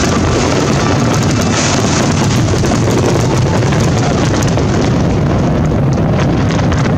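Fireworks going off in a dense, unbroken barrage: a continuous low rumble of bursting shells with many quick crackles over it.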